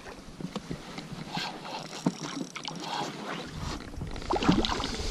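Water splashing and lapping at the side of an inflatable boat as a hooked pike is drawn alongside, with scattered small knocks and clicks.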